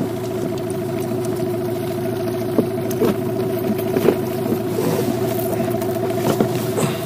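Outboard motor idling with a steady, even hum, with a few light clicks over it.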